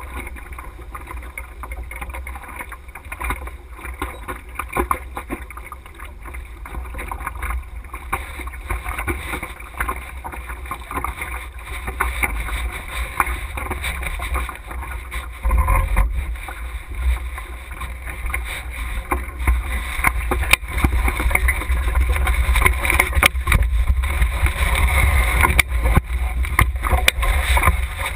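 Wind rumbling on the microphone of a camera mounted on a sailing dinghy's mast, over water noise, with scattered sharp knocks from the boat's rigging and hull. It grows louder after about fifteen seconds, as the boat heels hard over.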